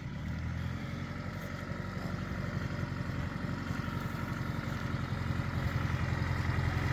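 A motor vehicle's engine running steadily with an even low pulse, slowly getting louder.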